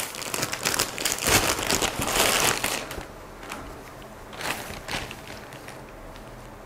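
Thin plastic bag crinkling as a folded T-shirt is pulled out of it, then quieter rustling of the cotton shirt as it is shaken open, with a brief flare about four and a half seconds in.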